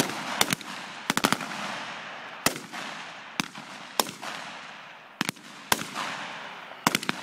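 Live rifle fire: sharp shots fired singly, in pairs and in quick strings of three or four, about a dozen in all, each followed by a long rolling echo across the open range.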